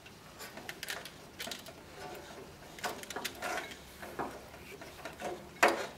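Handling noise as a flexible plastic hose is worked onto a spigot fitting: irregular small clicks, rubs and knocks of tubing against plastic and glass parts, the loudest knock near the end.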